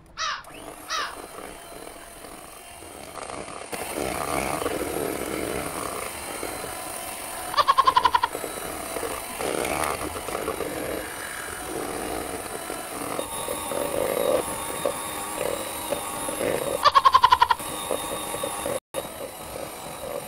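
Electric mixer running with its beaters churning through cake batter in a bowl. Twice, about nine seconds apart, a short, loud pulsing animal call rises over it.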